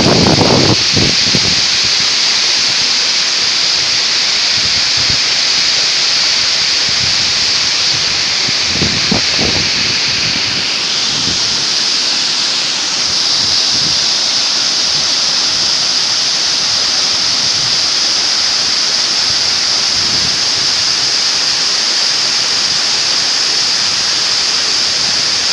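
Waterfall rushing: a steady, loud hiss of falling water, with a few brief low rumbles near the start and about nine seconds in.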